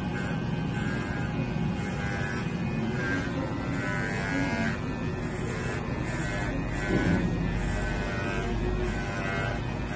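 Corded electric pet hair clipper buzzing steadily as it cuts through a dog's long white fur, its tone swelling and fading with each stroke through the coat. A brief louder sound about seven seconds in.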